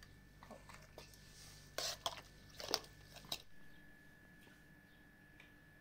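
Faint crunches and clinks of ice chunks being handled in a metal bowl, a few short strokes, loudest about two and three seconds in.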